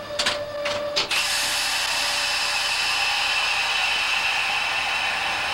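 A steady tone and a few clicks stop about a second in, then a loud, steady hiss of air starts suddenly in the locomotive cab, like the air brake valve exhausting.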